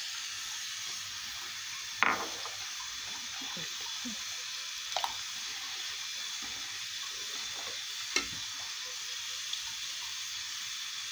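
Metal ladle stirring thickening rice pudding in a stainless steel pot, clinking against the pot three times, about two, five and eight seconds in, over a steady hiss.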